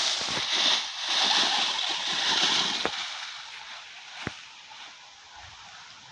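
ZD Racing ZMT10 RC monster truck driving through dry fallen leaves: a rustling hiss of its tyres churning the leaves that fades away after about three seconds, with two sharp knocks about three and four seconds in.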